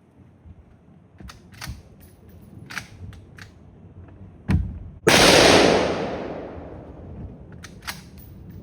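A single rifle shot from a Ruger American Ranch bolt-action rifle in 5.56, about five seconds in, loud and fading away over a couple of seconds. A few sharp clicks and a knock come before it, and more clicks near the end.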